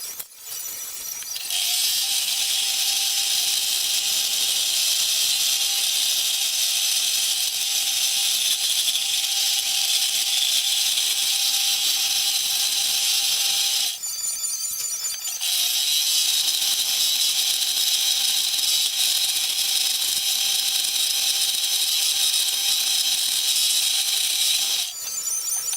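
A small power tool running steadily with a high whine and hiss, in two long runs with a short stop in between about halfway through.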